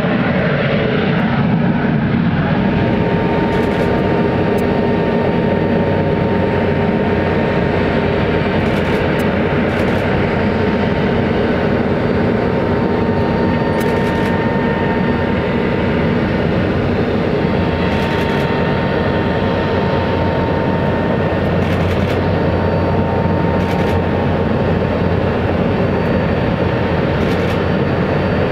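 Airliner jet engine noise: a steady, loud rush with a constant high whine on top.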